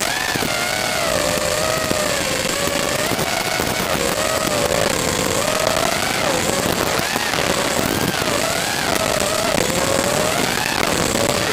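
Brushless motors (2205, 2300 KV) and propellers of a 5-inch FPV racing quadcopter whining in flight, the pitch rising and falling as the throttle changes, over a steady hiss.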